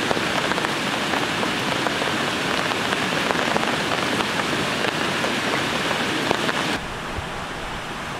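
Steady rain falling, a dense rushing hiss with many small drop hits. About seven seconds in it cuts suddenly to a quieter, duller steady rush with more low rumble.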